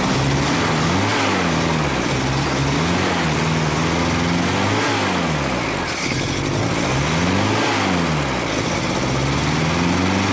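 Datsun 1200's A-series four-cylinder engine running on SU twin carburetors, its revs swinging up and down every one to three seconds, with the carburetors being adjusted by hand to cure an unstable running condition.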